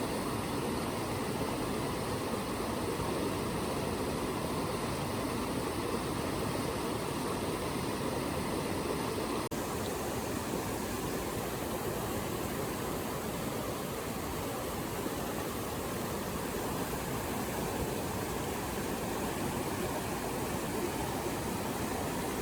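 Steady rush of flowing water, a stream or waterfall. About nine and a half seconds in there is a brief dropout and the sound changes slightly.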